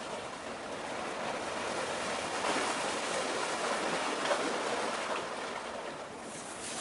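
Waves washing at the shore: a rushing hiss of water that swells for a few seconds in the middle and then eases off, with a brief sharper hiss near the end.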